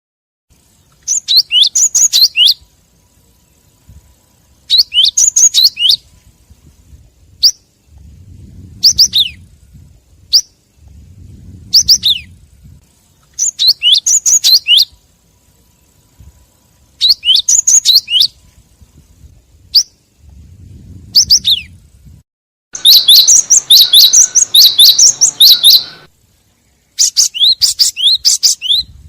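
Cinereous tit (gelatik batu) calling: short bursts of rapid high chirps about every three seconds, with a longer, denser run of calls about 23 seconds in.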